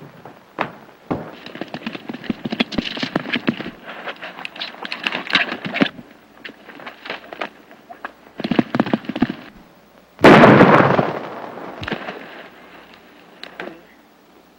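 Galloping horse hoofbeats in rapid clattering runs, then a single loud gunshot about ten seconds in that rings out and dies away over a second or two.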